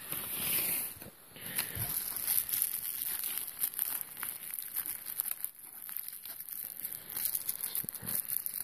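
Thin clear plastic bags and bubble wrap crinkling and crackling in the hands as a coin is unwrapped, a continuous run of small sharp crackles.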